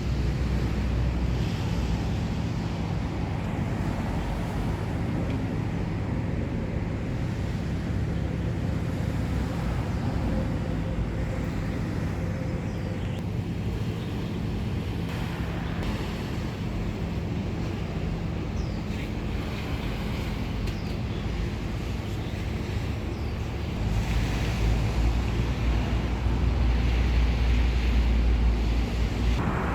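Wind blowing over the microphone, a steady low rumbling roar that grows louder about 24 seconds in.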